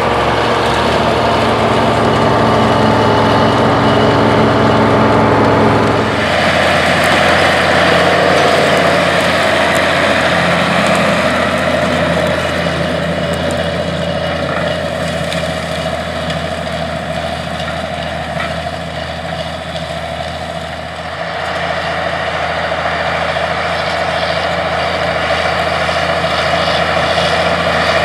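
Allis-Chalmers 200 tractor's turbocharged six-cylinder diesel running steadily under load while pulling a tandem disc through the soil. The sound changes abruptly about six seconds in and dips briefly about three quarters of the way through.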